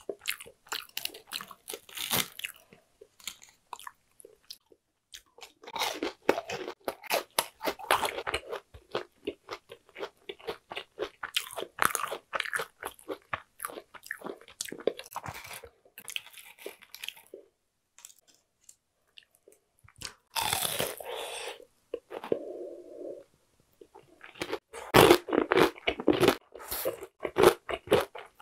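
Close-miked crunching and chewing of crispy deep-fried, breadcrumb-coated food, in runs of sharp crackles with a pause of a couple of seconds about two-thirds through. The loudest crunching comes near the end, as a bite of cheese-filled tonkatsu is chewed.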